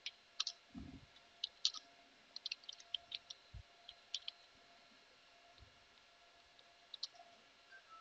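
Faint computer keyboard typing: scattered keystroke clicks for about four seconds, then a couple more near the end, with a few soft low thumps.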